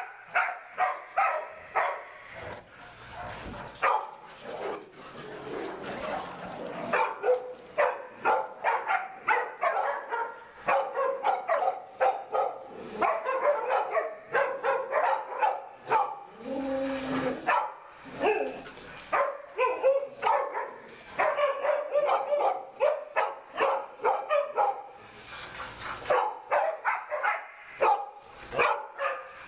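Dogs barking and yipping, several sharp barks a second in near-continuous runs with brief lulls.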